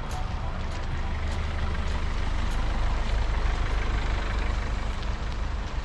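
Riding noise from a plus-tyre kids' mountain bike on a muddy towpath: a steady low rumble of tyres on the rough wet surface and wind on the helmet-camera microphone, with scattered small clicks and rattles.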